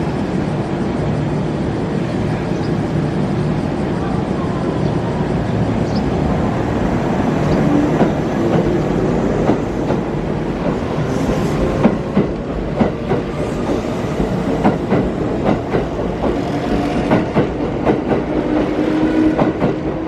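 Kintetsu electric train pulling out and passing close by, its traction motors whining upward in pitch as it gathers speed. In the second half the wheels click over rail joints more and more often.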